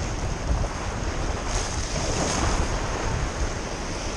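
Small sea waves washing and splashing over a shallow rocky shoreline, with a wash of surf swelling about halfway through. Wind buffets the microphone with a low rumble.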